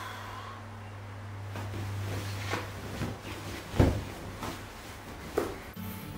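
Bedcovers rustling as a blanket is thrown off and a person gets out of bed, with a dull thump a little before the four-second mark and a sharper one about a second and a half later. A steady low hum fades out partway through.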